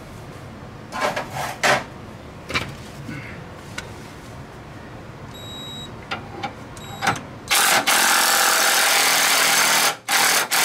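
Cordless impact wrench hammering the bolt of a pitman arm puller tight, forcing the pitman arm off the steering gear's shaft. A few knocks and clicks as the tool is set on, then one long run of about two and a half seconds and a short second burst.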